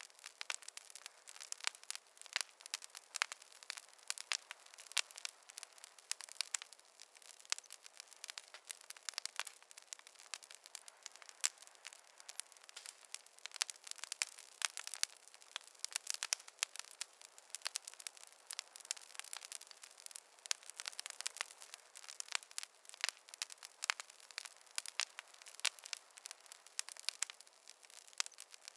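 Campfire burning and crackling, with many quick sharp pops and snaps, some louder than others, over a faint hiss.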